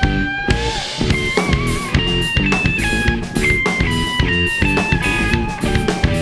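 Rock band playing live: a drum kit keeping a steady beat under repeating guitar chords, with a lead line of held, slightly wavering notes on top. No singing.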